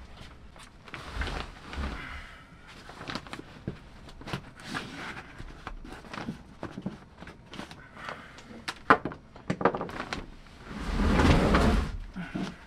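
Hands working on a battery bank's wiring: scattered clicks, knocks and rustling of cables and terminal hardware. A longer, louder scuffing sound comes near the end.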